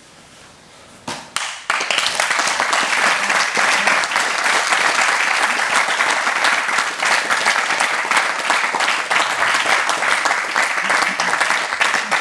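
A group of people applauding, breaking out after a couple of sharp first claps about a second and a half in and going on steadily.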